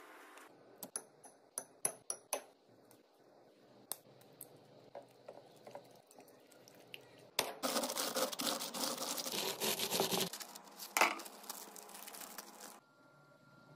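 Kitchen food-preparation sounds: a quick run of sharp, ringing clinks of utensils about a second in, then scattered ticks. Midway through comes several seconds of dense rustling noise, with one loud knock inside it.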